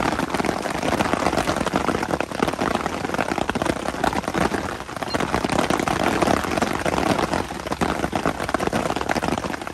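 Hail falling hard on the canvas of a fishing brolly overhead: a dense, steady rattle of countless small hits.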